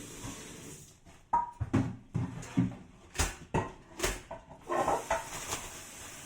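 Cookware and utensils knocking and clattering in a kitchen: a run of irregular knocks starting about a second in, with two sharper strikes near the middle.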